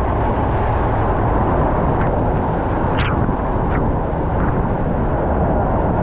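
A curtain waterfall pouring close by: a loud, steady roar of falling water, with a few sharp ticks near the middle.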